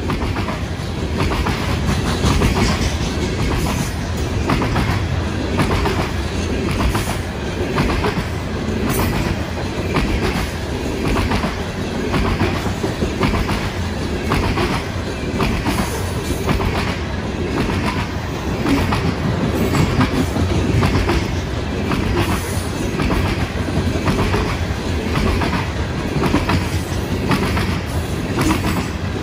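Loaded coal hopper cars of a freight train rolling past, their wheels clicking in a steady repeating rhythm over a continuous low rumble.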